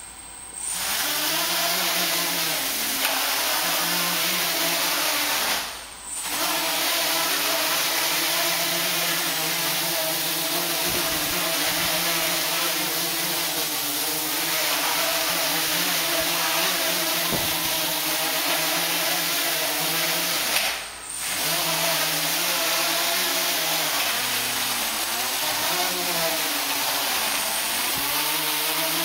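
Home-built quadcopter's four motors and propellers spinning up and whirring in flight, their pitch wavering constantly as the flight controller keeps changing motor speeds. Typical of early PID tuning that the builder finds way too sensitive. The sound drops away briefly twice, about six seconds in and again about twenty-one seconds in, then picks up again.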